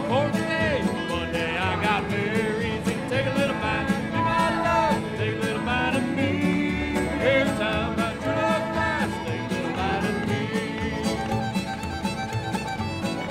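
Old-time string band playing a dance tune live: fiddle carrying the melody over banjo, guitar and upright bass, with a steady beat.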